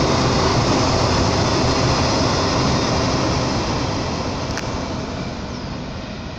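Container wagons of a freight train rolling past on the rails: a loud steady rumble of steel wheels that fades away over the last few seconds as the end of the train passes.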